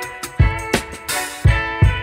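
Background music: a melody over a steady beat with deep, regular drum thumps.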